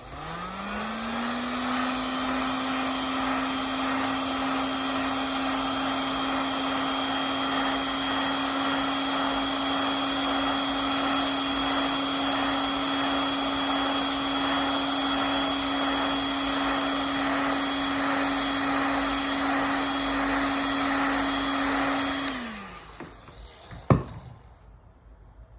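Hot-air blower switched on, its fan motor rising in pitch as it spins up, then running steadily while it dries acrylic paint test strips. About twenty seconds later it is switched off and winds down with a falling pitch, followed by a single click.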